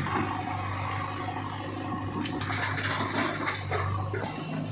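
Diesel engine running steadily under a rushing clatter of stones and rubble being loaded into a tractor trolley by a backhoe loader, from about two seconds in until near the end.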